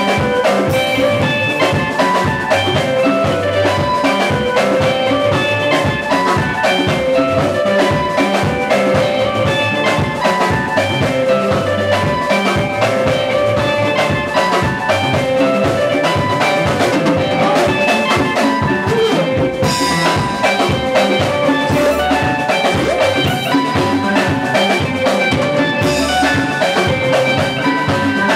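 Live gospel band playing an instrumental passage: electric guitar lines over a busy drum kit and congas, at a steady fast dance beat.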